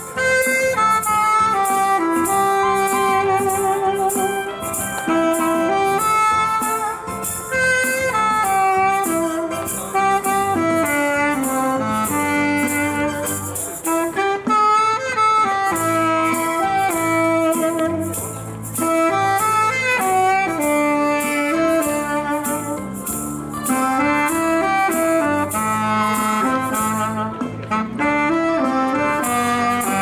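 Saxophone playing a melody over a backing track with a bass line, while a hand shaker keeps a steady rhythm.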